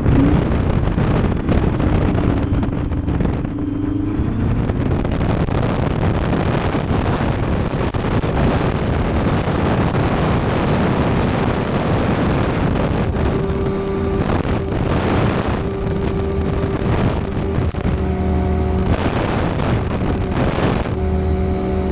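Light airplane's piston engine and propeller running hard, mixed with heavy wind rush. About halfway through it settles into a steady drone with a clear engine hum.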